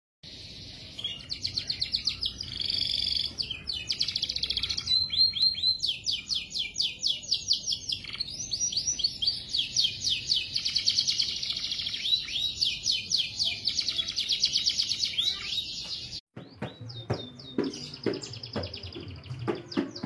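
Caged finch singing fast, high-pitched trilled phrases of rapidly repeated notes. About sixteen seconds in, the sound cuts off abruptly and a different bird's sharper chirps take over, with scattered clicks and knocks under them.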